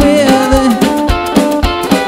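Lively music with a singing voice over a steady drum beat.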